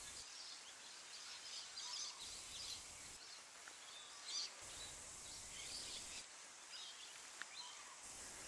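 Faint outdoor ambience with scattered, distant bird chirps.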